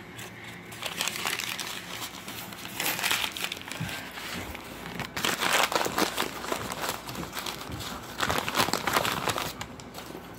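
Brown kraft packing paper crumpling and crinkling in four or so separate spells as it is handled and pulled out of a shipping box.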